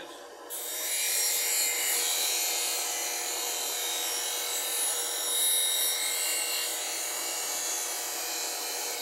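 Bench grinder wheel grinding the bevel of a small skew chisel held flat on the tool rest: a steady hissing grind of steel on the wheel, starting about half a second in, over the constant hum of the grinder motor.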